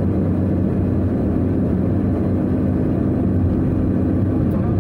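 A moving car's engine and tyres droning steadily at road speed, heard from inside the cabin as a low, even hum.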